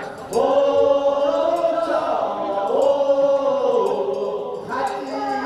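Several voices chanting a Korean funeral bier song (sangyeo sori) together in long, drawn-out, sliding notes. The group comes in shortly after the start and gives way near the end.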